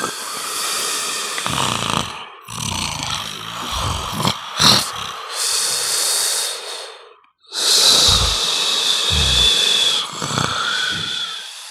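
A man snoring loudly: a string of irregularly spaced snores, with steady music-like tones underneath. The sound drops out briefly about seven seconds in.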